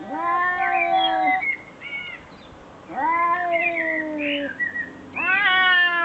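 An animal calling in long drawn-out cries, three of them, each held for about a second and a half, with fainter high chirps between the first two.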